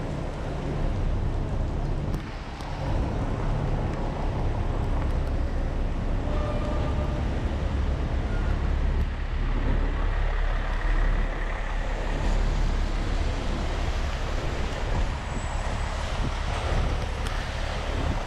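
Street traffic noise on rain-wet city streets, heard from a moving bicycle, with a steady heavy low rumble.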